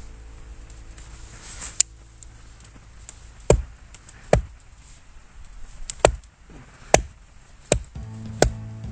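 Firewood being split by hand: a series of sharp chopping strikes of a blade into wood, about seven of them, roughly one a second.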